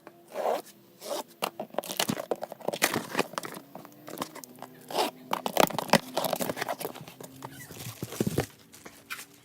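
Subwoofer cardboard boxes and packaging being opened by hand: tearing, crinkling and scraping, with a rapid run of sharp clicks and knocks.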